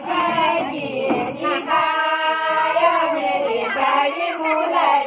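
Women's and girls' voices singing a Kumaoni jhoda folk song together, with one long held note about two seconds in.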